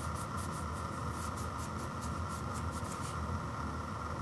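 Fingers rubbing and scratching across the side of an ice cream pint container: quick, evenly repeated strokes, about five a second, that stop about three seconds in, over a steady background hum.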